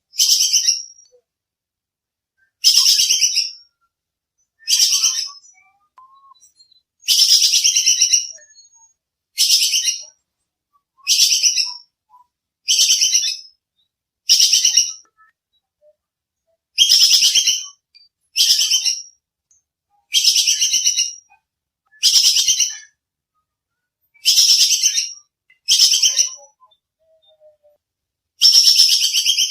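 Squirrel's sharp chattering alarm call, the 'kekes' call: short high-pitched bursts of rapid chips, repeated about every two seconds.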